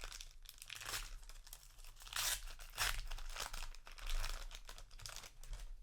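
A foil trading-card booster pack being torn open, with crinkling of the wrapper in irregular rustles and rips, the loudest about two and three seconds in.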